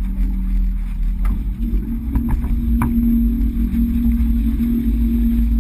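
Sailboat under way: a steady deep rumble of wind and rushing water, with a steady low hum whose pitch steps up slightly about two seconds in, and a few faint clicks near the middle.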